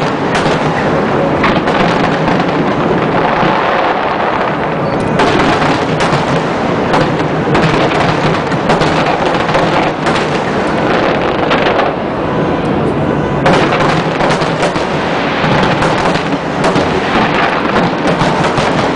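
Large aerial fireworks display: shell bursts going off in rapid, overlapping succession, booms and crackle running together into a continuous loud barrage.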